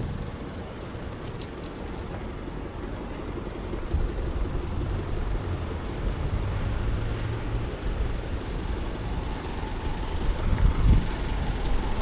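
Low rumble of passing vehicles in city traffic, getting louder about four seconds in and swelling again near the end.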